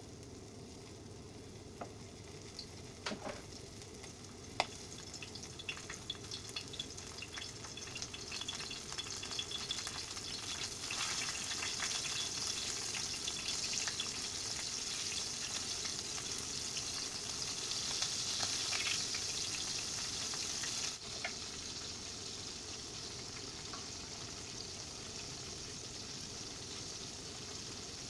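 Calamari frying in hot oil. A few sharp clicks and pops come in the first five seconds, then the sizzle builds up and is loudest through the middle. About three-quarters of the way through it drops suddenly to a steady, quieter sizzle.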